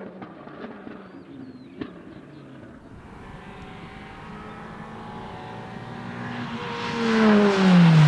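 Rally car engine drawing closer at speed and growing loud, its engine note falling steadily as it arrives near the end. Earlier, a fainter engine and two short sharp cracks.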